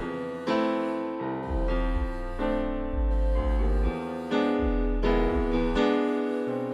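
Background music of electric-piano-style keyboard chords over a deep bass, the chords changing about every second.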